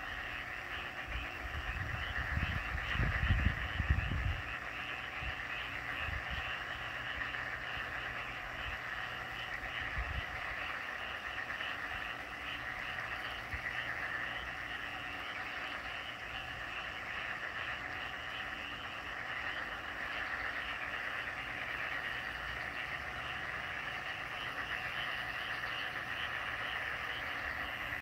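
Dense chorus of many frogs calling together at night, a steady massed trilling with no single voice standing out. Low rumbles sound under it for the first four seconds or so.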